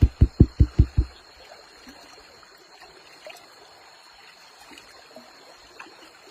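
Rhythmic low thumps, about five or six a second, stopping about a second in, then faint trickling water with small scattered clicks.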